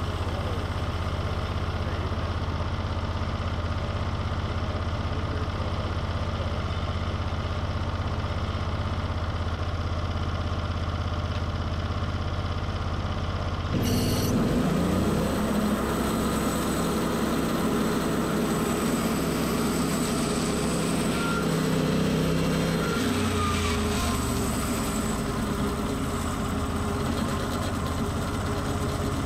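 Portable bandsaw sawmill's gas engine idling with the band blade at rest. About halfway through, the engine revs up sharply and the band blade starts turning, sawing crosswise through a stack of upright logs, with a second change in pitch a little later.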